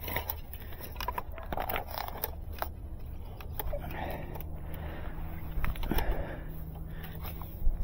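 Handling noise from a fiber splice closure: irregular plastic clicks and knocks, with cables rubbing and scraping, as drop cables are worked through the closure's end cap. A steady low rumble runs underneath.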